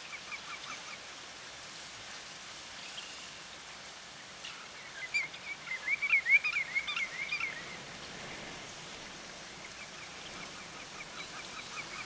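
Wild birds calling in a marsh: a quick, even run of repeated high chirps at the start and again near the end, and a louder flurry of short up-and-down calls in the middle.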